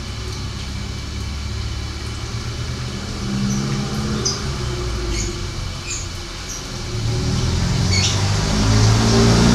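Steady low rumble of a vehicle engine running nearby, growing louder near the end. Over it come about six short, sparse chirps from a caged canary: call notes, not full song, from a male canary that has gone quiet after breeding.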